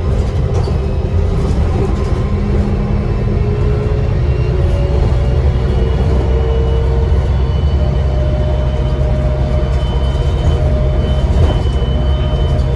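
Diesel bus engine running under load as heard from inside the cabin, with a steady low drone that rises slightly in pitch and a thin high turbocharger whistle that comes in about halfway through.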